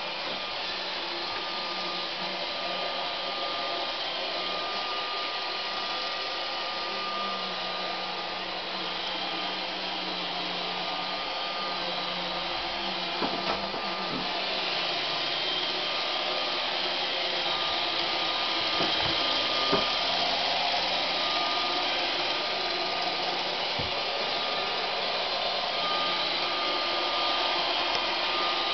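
Roomba robot vacuum running, a steady whirring noise with a thin high whine. There are a few faint clicks along the way.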